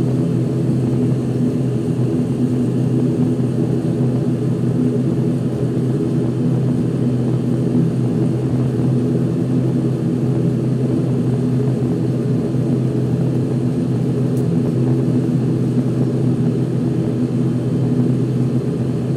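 ATR 72-500's Pratt & Whitney PW127 turboprops and propellers running steadily, heard from inside the cabin: a constant low drone with several steady hum tones.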